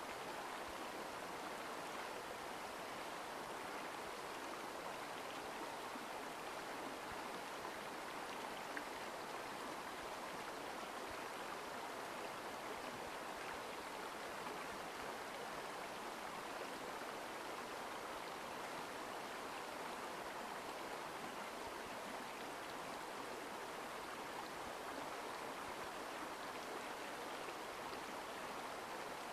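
Mountain stream water rushing steadily over rocks, an even, unbroken sound.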